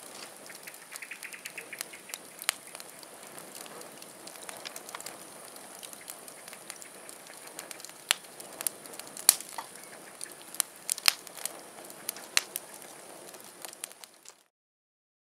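Wood burning in an open steel cone biochar kiln, crackling with scattered sharp pops that come louder and more often in the second half. The sound cuts off shortly before the end.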